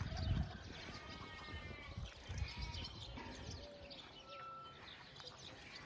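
Faint, scattered sheep bleats in the distance, with bird chirps.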